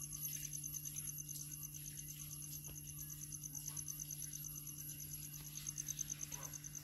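Insects chirping faintly, a rapid, even, high-pitched pulsing, over a steady low hum.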